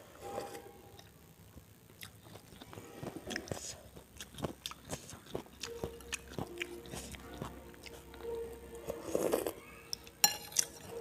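Close-miked eating sounds: soup sipped from a spoon and chewed, with many small wet mouth clicks. A metal spoon clinks against the ceramic bowl with a brief ring near the end.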